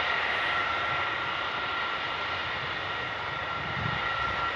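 The four TF33 turbofan engines of a Boeing E-3A AWACS running, a steady jet whine: two high tones held level over an even rush of engine noise.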